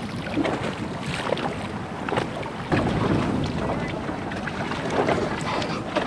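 Wind buffeting the microphone over choppy sea, with water slapping against a small inflatable boat and scattered knocks and rustles of snorkelling gear being handled. The wind rumble grows louder about three seconds in.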